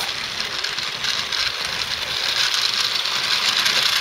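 16 mm scale garden railway train running along the track: a steady rattling noise.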